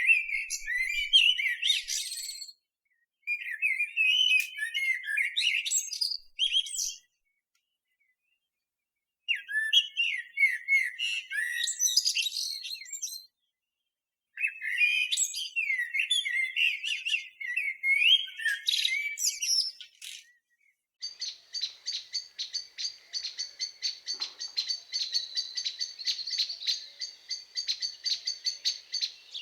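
Eurasian blackbird singing: four phrases of fluty, sliding notes, each ending in a higher squeaky twiddle, with pauses of a second or two between them. About two-thirds of the way in, the song gives way to a fast, steady run of repeated short high notes, about four a second.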